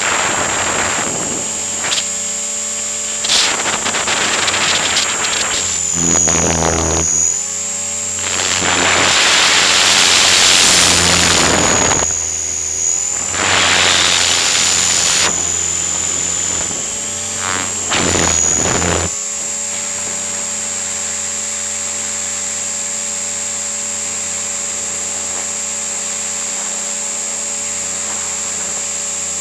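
Electric motor and drivetrain of a T-REX 500 RC helicopter whining steadily, heard from a camera on its nose. Loud rushes of wind noise come and go through the first two-thirds while it manoeuvres, and the whine dips briefly in pitch twice. After that only the steady whine is left.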